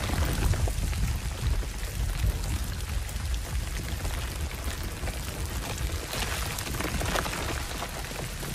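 Film sound effects: a steady deep rumble under a crackling, rain-like hiss.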